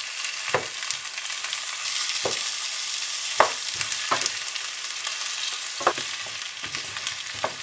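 Chunks of courgette sautéing in hot oil in a stainless steel pot, sizzling steadily, while a wooden spoon stirs them, with about six scattered knocks as the spoon and pieces hit the pot.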